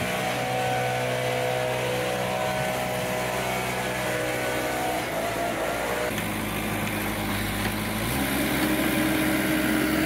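Vermeer mini skid steer's engine running steadily, its note shifting about six seconds in and rising again about eight seconds in.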